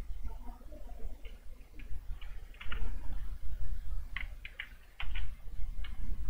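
Computer mouse buttons and keyboard keys clicking: scattered sharp ticks, sometimes two or three close together, over a steady low hum.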